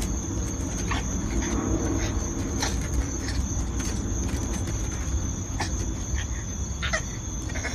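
Steady high-pitched insect trill, over a low rumble of wind on the microphone, with a few light clicks scattered through.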